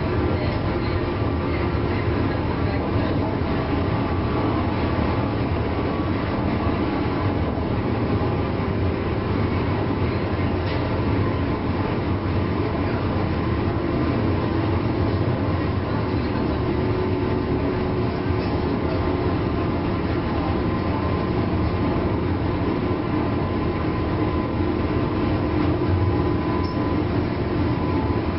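JNR 201 series electric train running, heard from inside motor car MoHa 201-254 directly above its armature-chopper control equipment: steady wheel and motor noise with faint steady tones under it.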